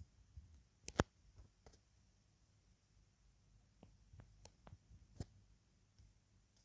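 Near silence with a few scattered sharp clicks and knocks, the loudest about a second in and another a little after five seconds.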